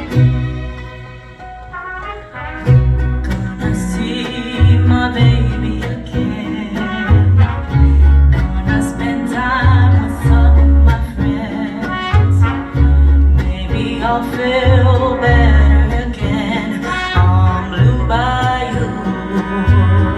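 Mariachi band playing, with trumpets and violins over a strong bass beat.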